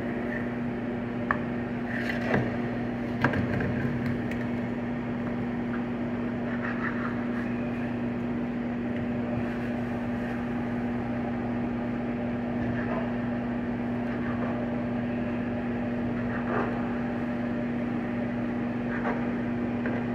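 Microwave oven running with a steady hum. A few sharp knocks and clicks, from a knife and utensils being handled, come in the first few seconds, with fainter ones later.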